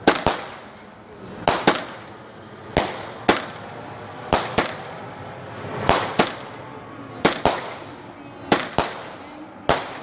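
Fireworks going off in a steady barrage: sharp bangs, mostly in close pairs about every second and a half, each trailing off with an echo.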